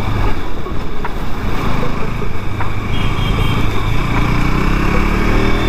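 KTM RC 200's single-cylinder engine running under way; about three and a half seconds in its pitch starts climbing as the bike accelerates.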